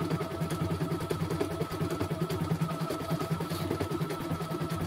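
CNY E900 computerised embroidery machine stitching at a rapid, even rhythm over a steady motor whine, played back at double speed.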